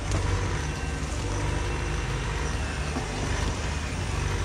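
Diesel engine of a compact Caterpillar machine running steadily under load, a continuous low hum with mechanical noise, as it works on tree stumps.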